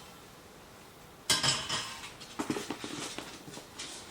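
Packing foam and parts being pulled out of a cardboard box: a loud scraping rustle about a second in, then scattered light knocks and rustles.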